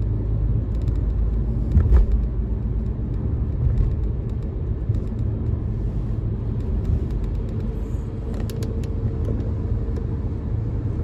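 Car road noise heard from inside the cabin while driving on a wet highway: a steady low rumble of engine and tyres. There is a brief louder knock about two seconds in and a few faint clicks later on.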